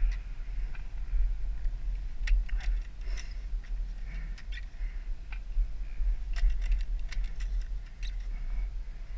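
Wind buffeting a helmet camera's microphone as a steady low rumble, with scattered small clicks and faint squeaks over it.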